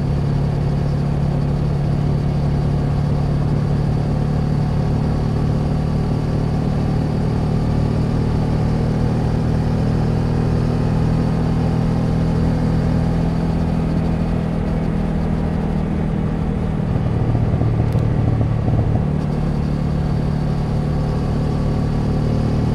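Honda Transalp XL700V's V-twin engine running steadily at cruising speed on the road. About three-quarters of the way through, the engine note drops lower for about two seconds, then comes back up.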